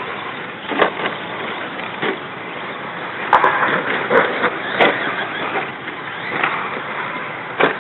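2WD short course RC trucks racing on a dirt track: a steady noisy whir of motors and tyres, broken by several sharp clacks.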